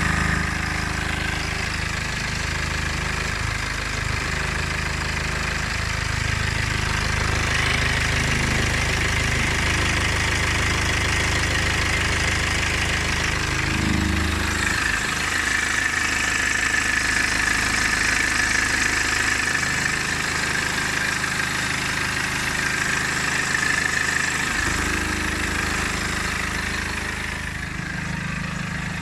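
BMW N47 four-cylinder diesel engine idling steadily, with a noise that the owner suspects is the timing chain.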